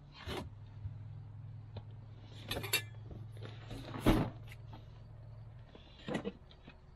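Cardboard box being handled and turned over on an aluminium table: a few scrapes and knocks, the loudest a thump about four seconds in, over a low steady hum that stops about five and a half seconds in.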